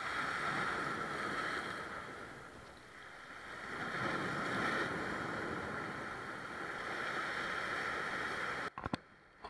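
Rough-sea surf breaking and washing against the rocks of a stone breakwater, a steady rush that eases about three seconds in and swells again a second later. It cuts off abruptly near the end with a couple of clicks.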